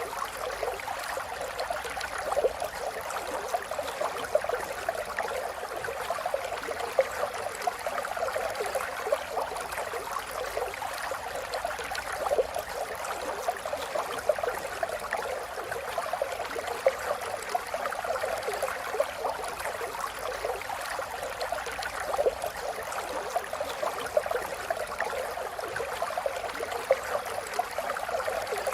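A river or stream flowing steadily, with a constant babble of water over rocks and small splashes and gurgles all through.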